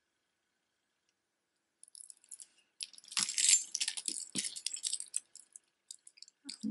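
A beaded hematite necklace rattling and clicking as it is picked up and handled: a quick run of small clicks and clatters that starts about two seconds in and is loudest a little past the middle.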